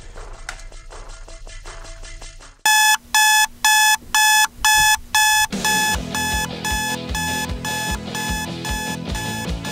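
Alarm clock going off in six loud, evenly spaced beeps, starting a little over two seconds in. Music with a steady beat starts about halfway through and runs on.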